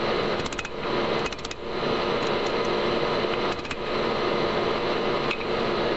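Steady mechanical roar, with short runs of quick metallic clinks about half a second in and again about a second and a half in, as a hot steel connecting rod is handled with tongs and a hammer on an anvil.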